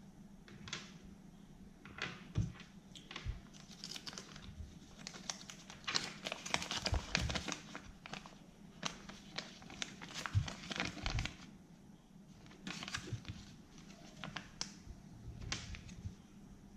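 A candy wrapper being crinkled and torn open by hand, in irregular crackling handling sounds that are busiest in the middle stretch.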